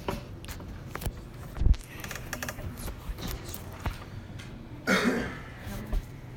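Phone handling noise: irregular taps, knocks and rubbing on the microphone as the phone is turned around, the loudest a thump just under two seconds in. A short voice sound, like a cough, comes about five seconds in.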